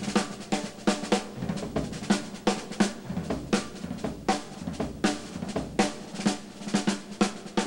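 Drum solo on a jazz drum kit played with sticks: a fast, continuous run of strokes on the snare and toms with regular accented hits, and bass drum underneath.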